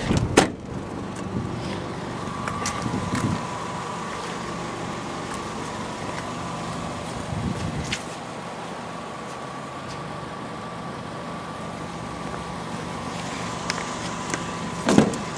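2007 Ford Focus SE's four-cylinder engine idling steadily, heard from beside the car, with a brief knock just at the start.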